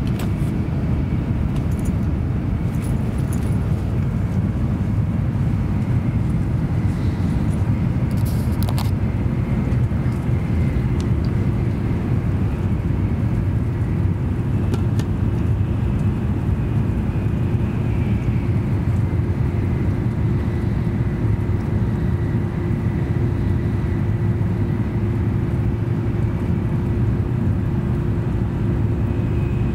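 An N700A-series Shinkansen train running, heard from inside the passenger car as a steady deep rumble and hum. A steady mid-pitched hum tone grows stronger from about halfway, over a faint higher whine. A few light clicks and knocks fall in the first several seconds.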